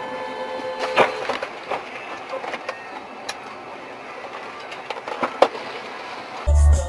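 Vehicle and road noise with scattered sharp knocks and clicks, the loudest about a second in and again near five and a half seconds. Near the end, music with a heavy beat cuts in.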